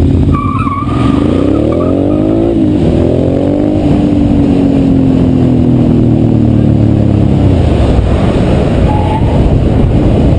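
Motorcycle engine accelerating hard, its pitch climbing, dropping at a gear change about two and a half seconds in and climbing again, then settling and slowly easing off as it cruises. Heavy wind rush runs underneath throughout.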